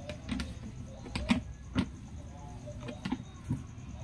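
Irregular sharp metal clinks, about six of them, from an L-shaped socket wrench being fitted onto and turned on a gold bolt in a scooter's plastic body panel.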